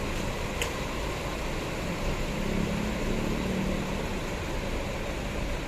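Large diesel bus engines running as intercity buses move past, under a steady dense rumble and hiss; an engine note swells for about two seconds in the middle. A brief click comes just after the start.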